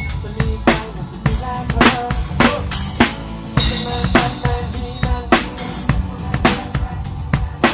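A band playing at a sound check: a drum kit keeping a steady beat with kick and snare, over a bass line and held pitched notes, with a cymbal crash about three and a half seconds in.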